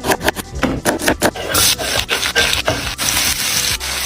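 Knife cutting food on a wooden board: quick rasping strokes at first, turning into a steadier, continuous rasp about a second and a half in.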